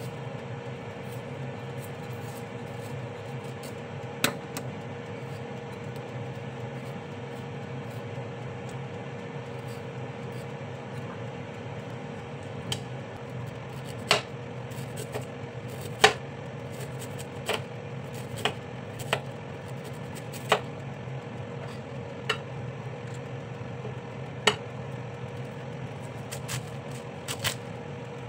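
Kitchen knife cutting ginger and cabbage on a wooden cutting board: sharp single knocks of the blade on the board, one about four seconds in, then irregularly every second or two through the second half. Underneath is the steady hum of a glass-bowl halogen convection oven running.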